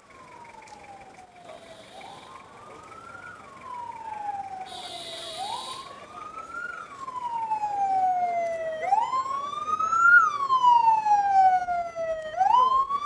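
Emergency vehicle siren wailing: each cycle rises quickly, falls slowly, and repeats about every three and a half seconds. It grows steadily louder as the vehicle approaches.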